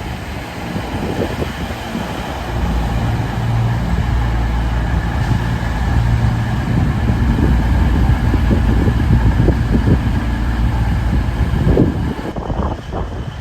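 A train's engine running with a steady low hum, with rumble and noise over it; the sound drops away near the end.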